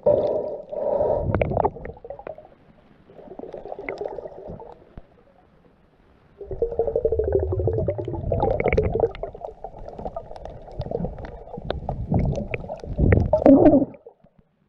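Muffled underwater rumbling and gurgling from a camera held below the surface. It comes in surges, with scattered sharp clicks over it.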